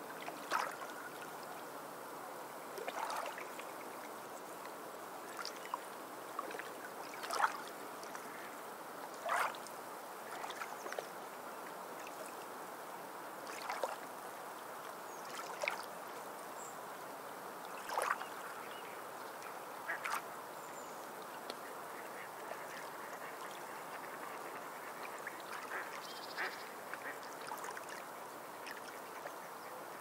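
Sea birds giving short calls every second or two over waves washing steadily ashore; the calls grow sparser in the last third.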